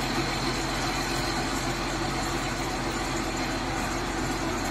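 Diesel engine of a 140-tonne railway breakdown crane running steadily.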